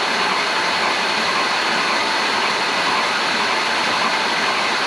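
Rebuilt engine being spun over on its starter motor to circulate oil, a steady whirring drone with a thin high whine over it. The new timing chain tensioner has bled its air and taken up the chain, so the earlier light chain noise is no longer there.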